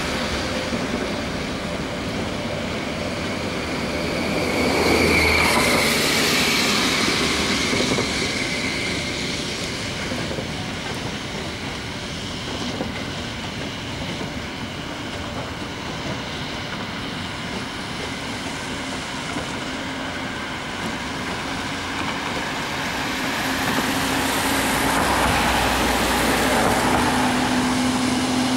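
Passenger coaches rolling along the station tracks: a steady rumble of wheels on rails, with a brief high wheel squeal about five seconds in. Near the end a low steady hum grows louder.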